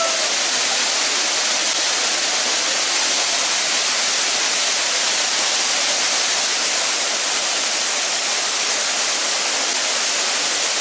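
Steady, unbroken rush of a waterfall: dense hiss of falling water at an even level.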